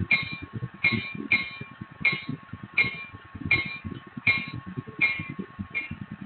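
Sound decoder in an N scale BLI F3 diesel playing the chugging prime mover, heard through a miniature on-board camera microphone. Rhythmic clickety-clack of wheels over rail joints comes about every three-quarters of a second. A thin steady whine under it cuts off near the end.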